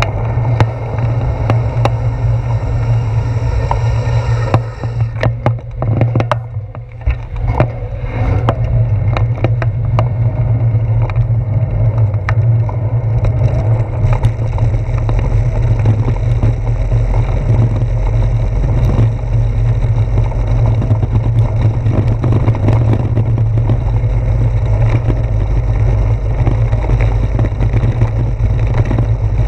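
Bicycle riding over a brick-paved street, recorded by a handlebar-mounted camera: a steady low rumble of road vibration with a constant patter of small knocks and rattles as the tyres roll over the bricks. It eases briefly about five to eight seconds in.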